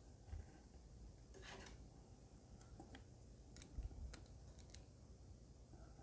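Near silence with faint handling noises: a soft brush and a few light clicks of twisted craft wire and a plastic ruler being handled, most of the clicks in the second half.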